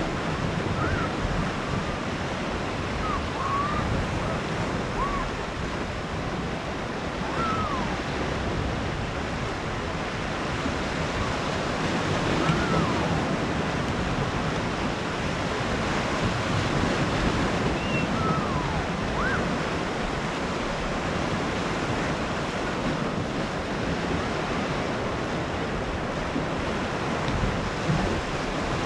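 Sea waves washing onto a small cove beach in a steady rush, with wind buffeting the microphone. Faint, short high-pitched calls come through now and then over the surf.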